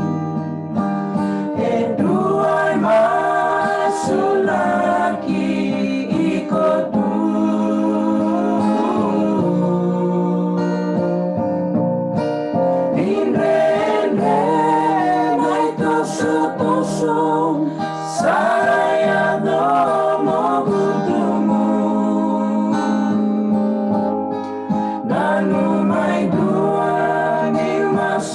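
Several voices singing a hymn together, accompanied by a guitar.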